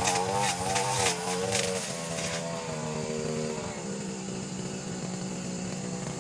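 Brush cutter's small petrol engine running, its pitch wavering up and down with the throttle. The high crackle drops away about two and a half seconds in, and the engine settles to a lower, steadier note.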